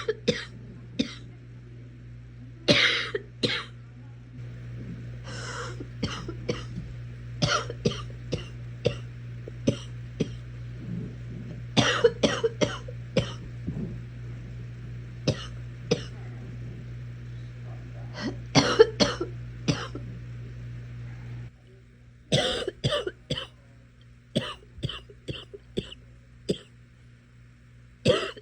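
A sick person coughing over and over, in short fits of several coughs every second or two. A low steady hum underneath stops about three-quarters of the way through.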